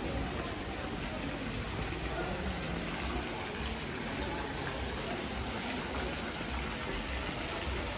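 Water pouring steadily from a spout and splashing.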